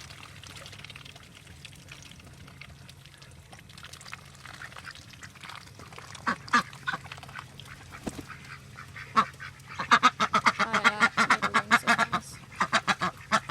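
Domestic ducks quacking: a few single quacks, then a loud, rapid run of repeated quacks lasting about two seconds near the end.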